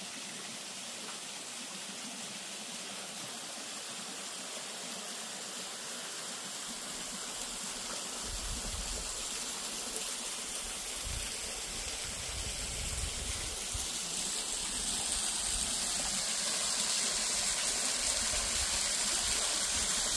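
Stream water rushing and splashing over rocks in a small cascade, growing steadily louder as it comes nearer. Low rumbling on the microphone comes and goes from about a third of the way in.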